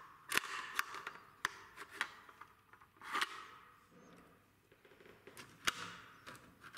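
Light metal clicks and two short sliding scrapes as a CETME L rifle's bolt assembly is slid back into its receiver and the parts are handled.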